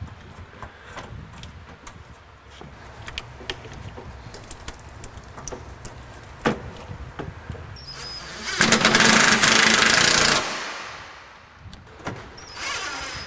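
Clicks and knocks of plastic and metal as a radiator is worked into place. About eight and a half seconds in, a DeWalt 18 V cordless 3/8-inch impact wrench hammers for about two seconds, running down a radiator mount bolt, and it starts again just before the end.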